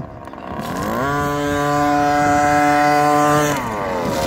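Radio-controlled short-course truck speeding up with a rise in pitch, holding a steady high speed, then falling off in pitch as it slows about three and a half seconds in.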